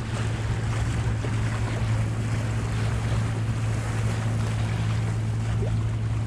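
Sailboat's engine running steadily while motor-sailing, a constant low drone, under the rush of water along the hull and wind buffeting the microphone.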